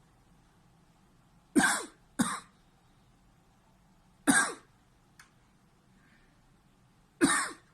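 A man coughing, four separate coughs: two close together about a second and a half in, one at about four seconds, and one near the end. It is a reflex cough set off by pressing on a schwannoma of the right vagus nerve in his neck.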